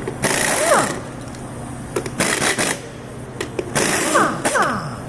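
Impact wrench with a 3/4 socket spinning lug nuts off a forklift's split-rim wheel. It runs in three short bursts, and its motor pitch falls away after each trigger release, with a few sharp clicks in between.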